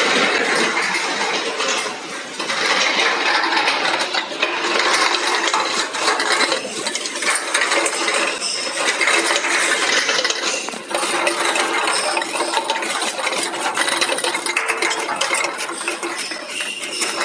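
Automatic e-liquid bottle filling line running: a dense, continuous clatter of bottles knocking together and against the feeder and starwheel, over a steady machine hum.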